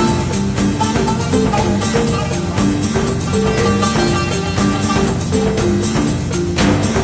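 Background music with a steady beat and a repeating run of held notes.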